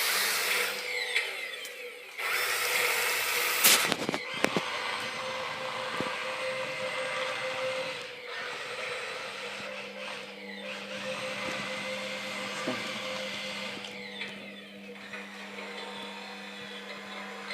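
The small electric motors of an Imaginext Batman Bat Bot remote-control toy whirring steadily, with a few sharp clicks about four seconds in.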